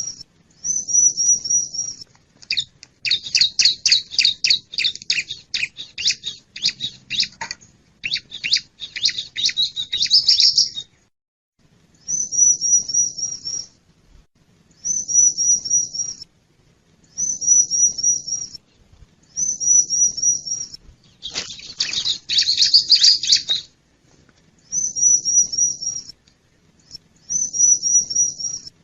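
Bar-winged prinia (ciblek) calls in a bird-lure recording. Short, high, rapid trilled phrases about a second long repeat every couple of seconds, broken by two longer bouts of loud, harsher chattering: one from about three to eleven seconds in, and a shorter one around twenty-two seconds.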